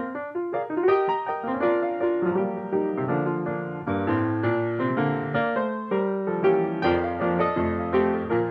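Background piano music, notes struck several times a second in a steady flowing melody.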